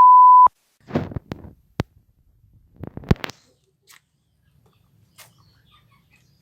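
A loud, steady electronic beep at one pitch for about half a second, then a few short clicks and rustles.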